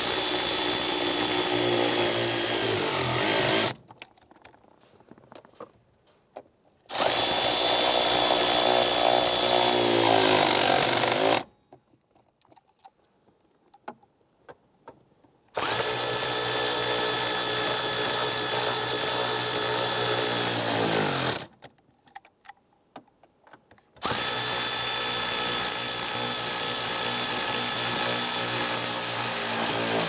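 Power tool spinning a socket on a long extension, running down the four nuts that hold the shifter assembly to its studs. It runs four times for a few seconds each, and its pitch drops as each run winds down.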